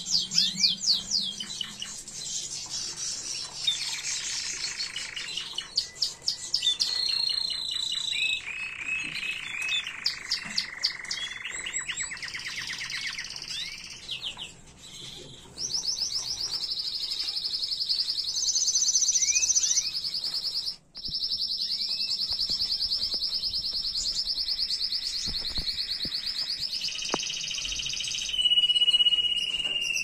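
Domestic canary singing a continuous song of rapid trills and rolls that change pitch every second or two, then one long steady high roll through most of the second half, broken only by a brief dropout.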